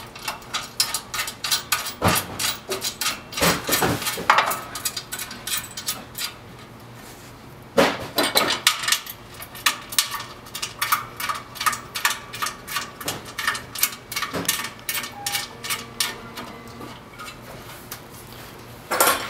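Screws being driven by hand into a metal printer-stand bracket: a long run of quick metallic clicks, a few each second, with a handful of louder knocks as the bracket is handled.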